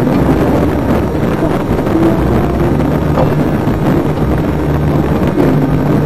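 Onboard recording of a HobbyKing Bix3 foam RC plane's electric motor and rear pusher propeller running in flight: a steady motor buzz mixed with heavy wind buffeting on the microphone.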